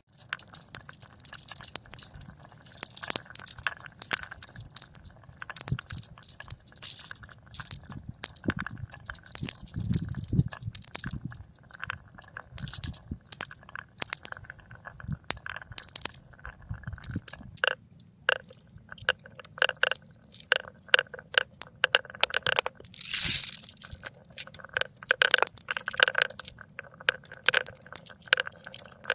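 Glass marbles rolling and clattering down a toy marble run: a dense, irregular stream of clicks and knocks, with a low rolling rumble around ten seconds in.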